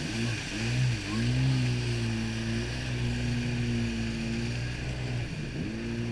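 Yamaha jet ski engine running at speed over a steady rush of water. Its pitch dips and climbs several times in the first second, holds steady, then dips and climbs again near the end as the throttle is eased and opened.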